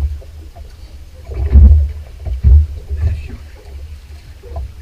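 Low, gusting rumble aboard a fishing boat at sea, swelling loudest in the middle, with scattered small knocks and clatter.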